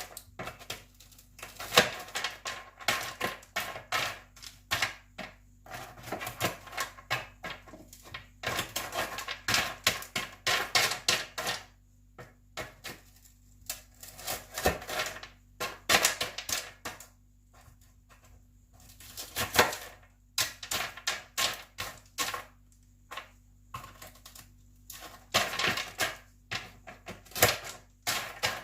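Crisp, sugar-coated fried macaroni pieces clicking and rattling against each other and a utensil as they are broken apart and stirred. The clatter comes in irregular bursts with brief pauses.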